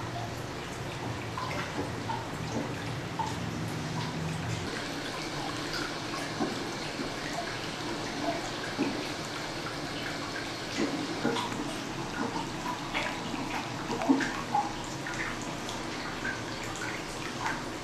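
Hot-spring water pouring from a spout into a bath, a steady splashing trickle with scattered drips and plinks on the surface.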